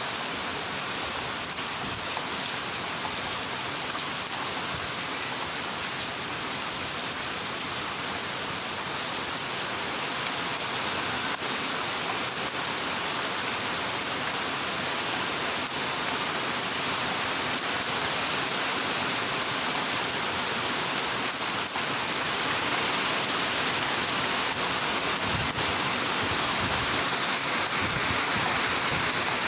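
Steady rain falling, an even hiss of drops that gets a little louder through the second half.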